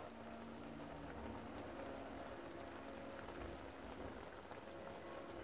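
Creamy sauce with gambas simmering and bubbling in a pan as it reduces and thickens: a faint, steady patter of small pops.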